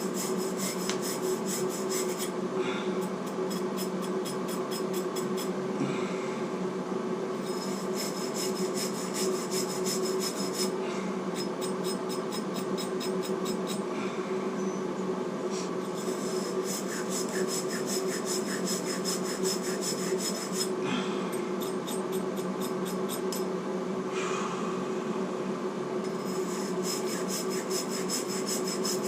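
Copper pipe being cleaned for soldering: rapid scrubbing strokes of an abrasive on the metal, coming in spells with short pauses between them, over a steady low hum.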